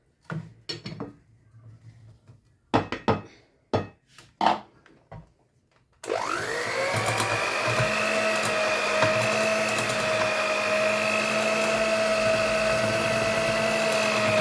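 A few knocks and taps of bowl and utensils, then about six seconds in an electric kitchen mixer starts. Its whine rises quickly to a steady speed and runs evenly as it beats the remaining flour into the cake batter.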